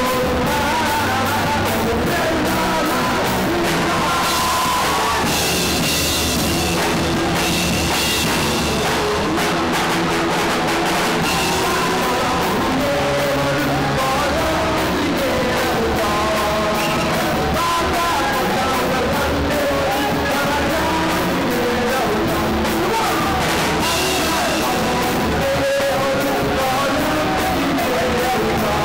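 Band playing a Nepali song with singing over electric guitar, bass guitar and drum kit, in a rock style. The music is steady and loud throughout.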